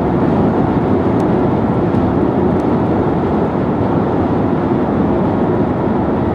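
Steady tyre and road noise from a Nissan Leaf electric car cruising at expressway speed.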